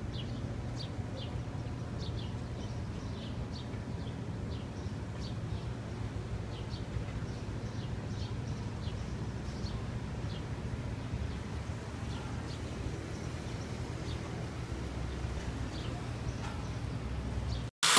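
Small birds chirping, short high chirps repeating about once or twice a second, over a low steady rumble.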